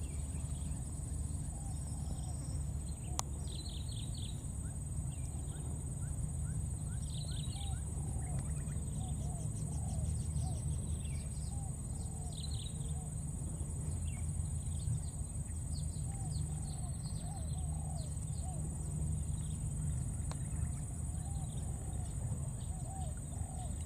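Outdoor wildlife ambience: a steady high-pitched insect drone, with many short chirping calls repeating every half second to a second over a low rumble.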